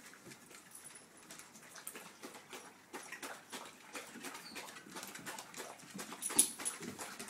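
Several dogs tussling in play: scattered light clicks and scuffling, with one sharper click about six and a half seconds in.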